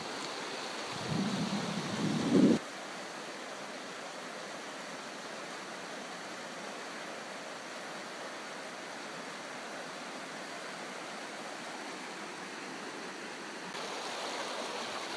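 Mountain river rushing steadily over its gravel bed, an even hiss of water. About a second in, a low rumble rises for a second and a half and cuts off abruptly.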